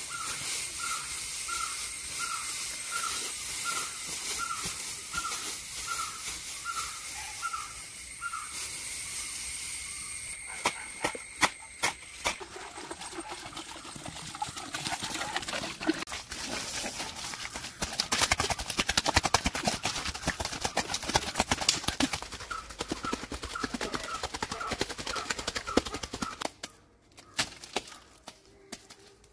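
Hands scraping, rustling and scooping dry straw, soil and wet mud: dense scratchy clicks that are thickest in the second half. A bird repeats a short note about twice a second near the start and again near the end, over a steady high whine.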